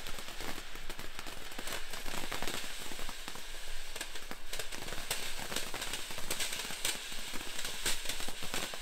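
Standard Fireworks ground fountain burning, spraying sparks with a continuous crackling hiss made of many fine pops.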